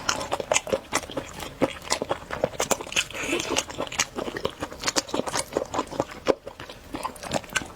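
A person eating a roast chicken drumstick close to the microphone: chewing and biting, with many short wet clicks and crunches.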